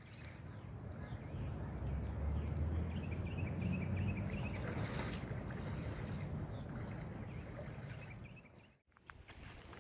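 Creek water flowing, with a low rumble underneath. The sound drops out briefly near the end, then resumes.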